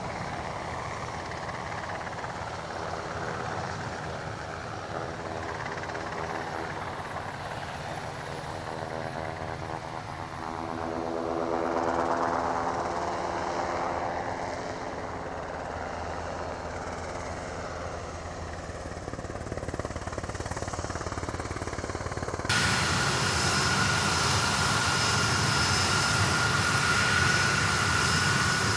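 Turbofan engines of a line of KC-135R Stratotankers (CFM F108) taxiing: a steady distant jet rush whose tone sweeps slowly in the middle. About 22 seconds in it cuts to a louder, closer sound with a steady high whine from the engines.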